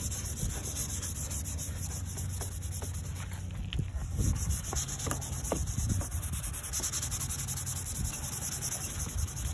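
Hand wet-sanding of an oxidised headlight lens with lubricated sandpaper on a pad: a steady rasping rub in back-and-forth strokes as the oxidation is sanded off.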